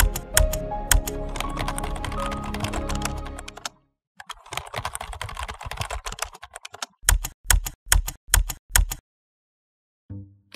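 Typing on a laptop keyboard, first over background music. The music cuts out about four seconds in, a run of fast keystrokes follows, and it ends with about eight separate heavier key strikes, each with a low thump, about four a second.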